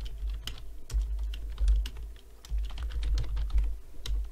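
Typing on a computer keyboard: quick, irregular runs of key clicks over dull low thumps.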